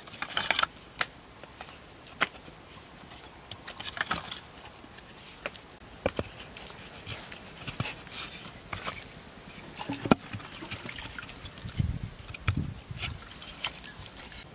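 Cut bamboo pieces being handled and fitted together: scattered sharp clicks and knocks with short scraping rustles, and a few dull low thumps about twelve seconds in.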